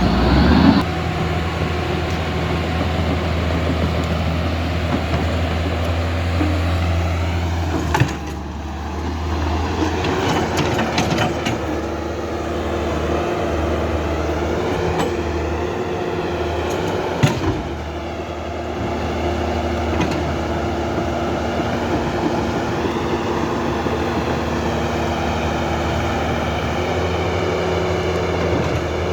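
Huina RC model excavator working: a steady machine drone with its electric motors whining and wavering in pitch as the arm moves. A sharp knock about 8 seconds in and another about 17 seconds in, each followed by a brief dip in the drone.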